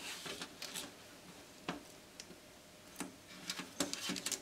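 Scattered light ticks and taps, about half a dozen at uneven intervals, as a strip of copper foil tape is laid and pressed down by hand onto a Teflon-coated metal plate.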